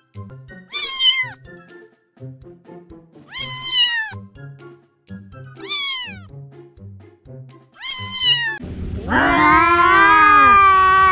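A cat meowing: four short meows that fall in pitch, about two seconds apart, then a longer, louder drawn-out meow near the end.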